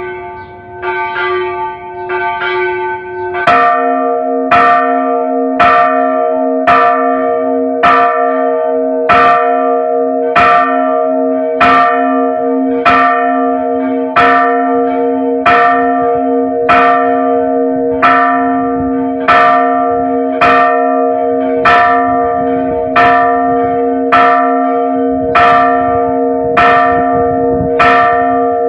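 Bronze church bells rung by rope-pulled clappers in a Mexican repique. A higher bell is struck a few times in quick succession, then about three and a half seconds in a louder, deeper bell takes over, struck at a steady beat of about once a second, each stroke ringing on into the next.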